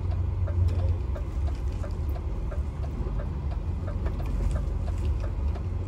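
Steady low rumble of a truck's engine and road noise heard inside the cab while driving, with faint regular ticks over it.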